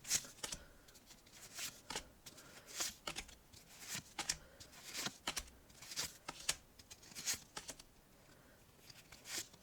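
Pokémon trading cards handled one by one, slid and flicked through by hand: short crisp card snaps about once or twice a second, with a short pause near the end.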